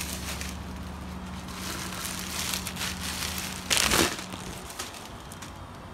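Plastic packaging bag crinkling as it is handled and pulled off a boxed roof rail, with a louder rustle about four seconds in.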